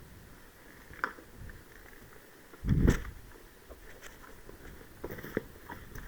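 Handling noise of worn gear: small clicks and rustles, a sharp click about a second in, and a dull thump about three seconds in, the loudest sound.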